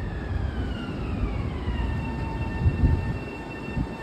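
Long Island Rail Road M7 electric train's motor whine sliding down in pitch as it brakes into the station, then holding steady, over a low rumble with a couple of thumps near the end.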